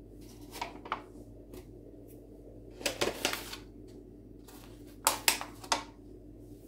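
Hands setting paska dough into a paper baking form on a floured wooden board: short crisp rustles and taps in three brief clusters, about a second in, around three seconds in and around five seconds in.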